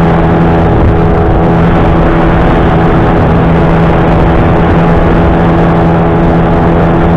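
Small outboard motor on an inflatable boat running at a steady, unchanging speed, with water rushing along the hull.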